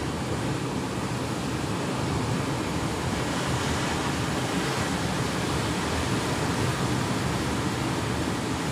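Sea surf breaking on a rocky shore, heard as a steady, even rush of waves.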